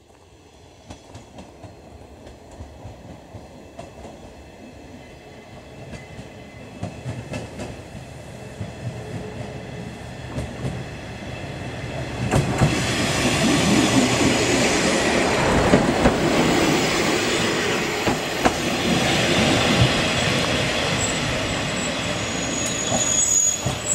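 JR Shikoku 1000-series diesel railcar approaching and pulling into the station: engine and wheels on the rails grow steadily louder, becoming loud about halfway through, with a thin high squeal near the end as it comes alongside the platform.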